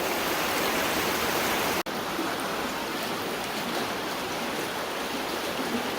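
Steady rush of shallow floodwater, an even watery noise without a beat. It cuts out for an instant just under two seconds in.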